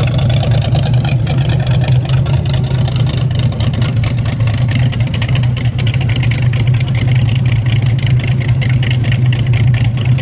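V8 engine of a 1931 Ford coupe hot rod running at a steady idle through short open exhaust headers, loud with rapid, even exhaust pulses.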